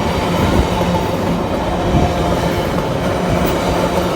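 MRS freight train passing, its wagons rolling over the rails in a loud, steady rumble with a steady low hum.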